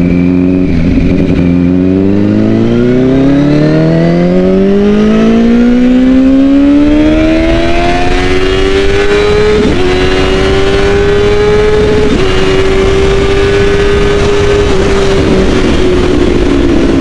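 Kawasaki ZX-10 inline four-cylinder sportbike engine under hard acceleration, its note rising steadily for several seconds. It breaks briefly twice, about ten and twelve seconds in, then holds a high steady note that eases off slightly near the end.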